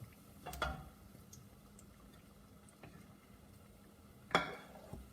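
Two short clinks of a cooking utensil against a frying pan or plate as fried kebabs are lifted out, about half a second in and a louder one near the end, over a faint steady hum.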